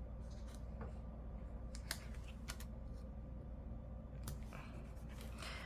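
Faint, scattered clicks and light rustles of paper and stickers being handled on a planner, over a low steady room hum.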